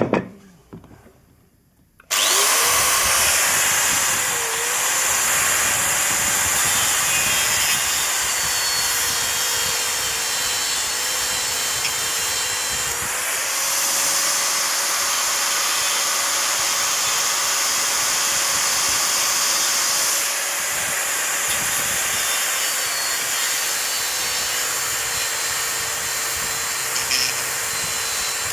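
A sharp knock, then about two seconds in an electric grinder starts abruptly and runs steadily, cutting acrylic sheet. Its motor whine dips briefly in pitch a few times.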